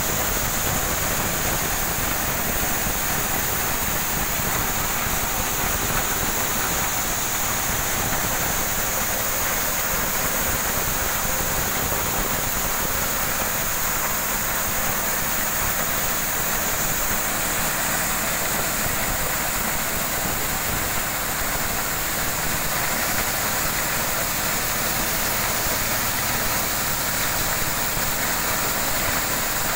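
Motorised corn sheller running steadily, driven by a small stationary engine, with a continuous rushing rattle of cobs being threshed and shelled kernels pouring out of the chute.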